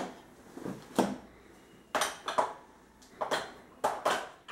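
Wheels of a Graco Trekko Duo Sport Luxe tandem stroller being taken off and handled, giving a series of irregular sharp clicks and knocks.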